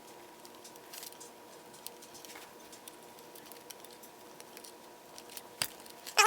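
Faint scattered clicks and rustles of small wires and plastic butt connectors being handled and joined. A short, loud, high-pitched call begins at the very end.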